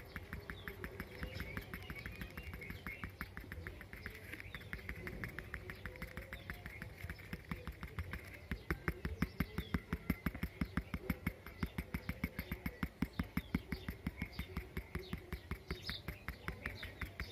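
Pencil tip tapping on drawing paper while stippling, several quick light taps a second. The taps become louder and more regular from about halfway.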